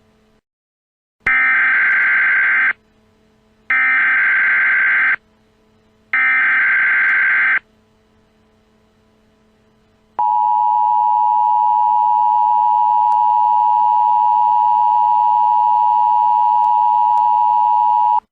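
Emergency Alert System header: three short bursts of warbling digital data, about a second and a half each, followed by the EAS two-tone attention signal, a harsh steady tone held for about eight seconds, announcing an emergency alert.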